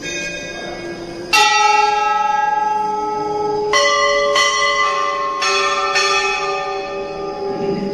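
Metal temple bell struck about six times at uneven intervals, the loudest strike just over a second in; each ring lingers as a cluster of clear tones, so the strikes overlap.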